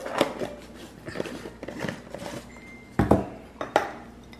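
Light spoon clinks and scrapes as ingredients are spooned into a blender jar, with two sharper knocks about three seconds in.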